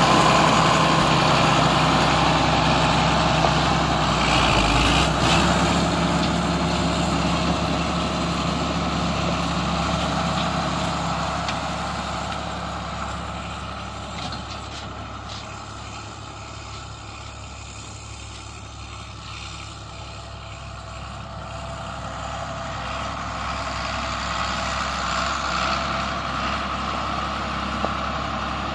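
1982 John Deere 4640 tractor's six-cylinder diesel engine running steadily, growing fainter toward the middle and louder again near the end.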